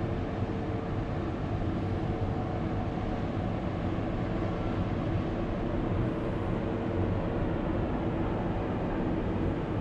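Steady low rumble and rushing noise heard from a ship's upper deck, with a faint steady machinery hum running under it.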